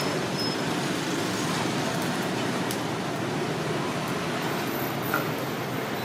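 Steady street noise with traffic, an even rumble at a constant level, with a few faint clicks.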